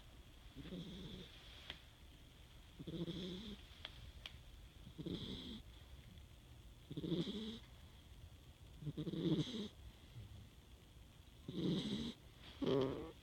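Snoring: a low snore about every two seconds, seven in all, the last two coming closer together. A sharp click at the very start.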